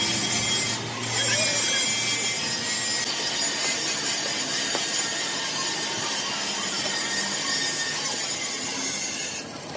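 Steady workshop machine noise: an even hiss with a faint high whine on top, dropping away just before the end.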